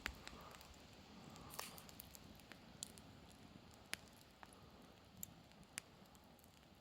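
Campfire firewood crackling: a handful of sharp, irregular pops over a faint hiss, the strongest near the start.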